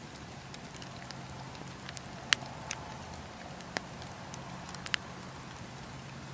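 Bonfire crackling: wood burning with a handful of sharp pops over a steady soft hiss, the loudest pop about two seconds in and a quick double pop near the end, over a faint low hum.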